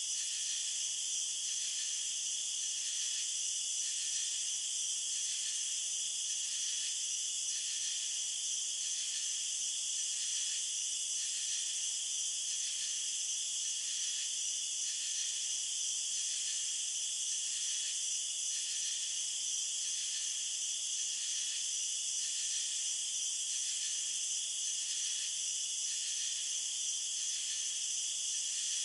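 Field crickets chirping in a dense, steady, high-pitched chorus, with a slow, even pulse running through it.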